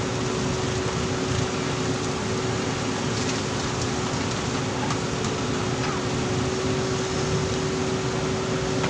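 JCB backhoe loader's diesel engine running steadily under work, with a steady whine held at one pitch throughout.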